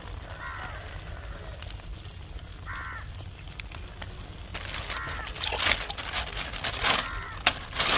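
A bird calling four times, short calls about two seconds apart. From about halfway, crackling clicks and rustles join in and grow louder.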